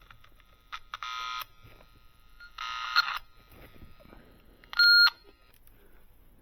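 An electronic device beeping three times: two half-second buzzy beeps, then a clearer, louder single tone.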